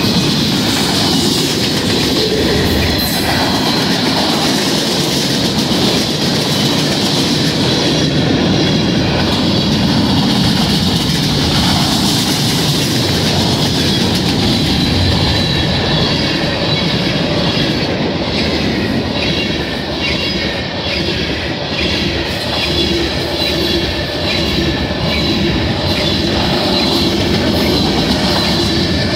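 Freight cars of a passing mixed manifest train rolling by at speed: steel wheels clack over the rail joints, with a steady high wheel squeal above the rolling noise.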